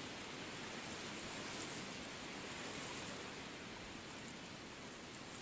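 Steady, even hiss with no distinct calls, growls or impacts standing out.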